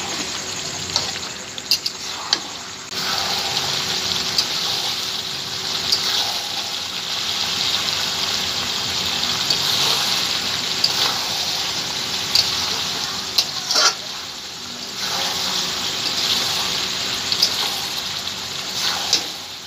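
Chicken curry frying in a large metal wok, a steady sizzle, with a metal spatula scraping and clicking against the pan as it is stirred.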